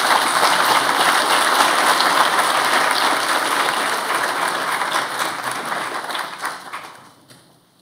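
Audience applauding, steady and then fading out near the end.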